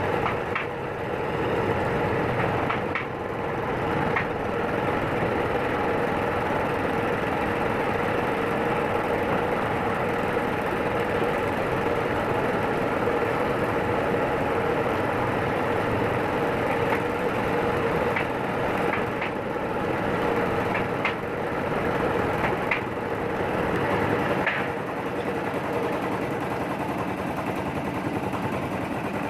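Wood lathe running steadily with a constant hum, and scattered sharp ticks.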